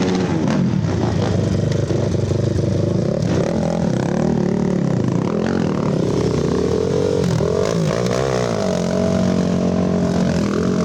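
Racing ATV engines revving hard, their pitch repeatedly rising and falling as the quads accelerate and shift.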